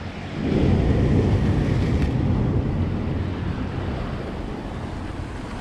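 Steady rushing of wind buffeting the microphone, mixed with sea surf washing against breakwater rocks. It swells about half a second in and then slowly eases.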